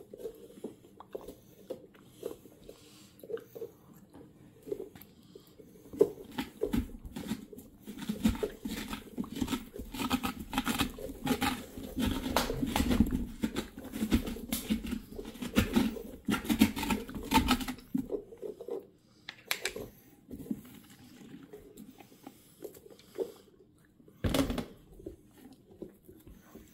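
Blade cutting and sawing through pumpkin rind while carving a jack-o'-lantern face: a run of short rasping strokes, densest in the middle, with a single knock near the end.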